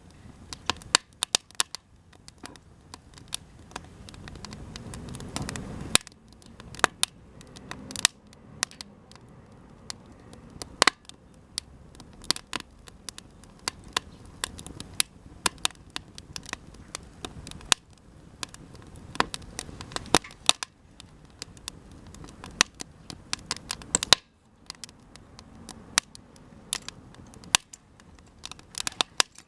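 Cedar offcut campfire crackling and popping: irregular sharp snaps over a low rush of flame, which swells about four to six seconds in.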